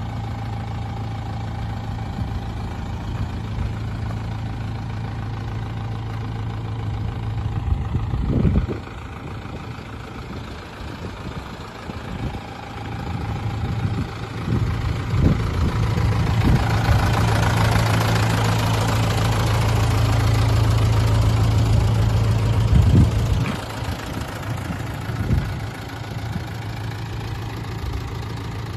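Mitsubishi Canter's 4D33 four-cylinder diesel engine idling steadily. It grows louder and fuller for several seconds through the middle, then settles back to idle.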